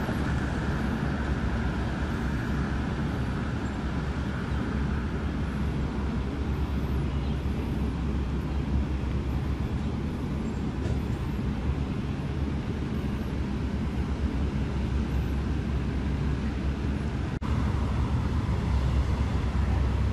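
Steady low rumble of background road traffic. It briefly drops out about three-quarters of the way through.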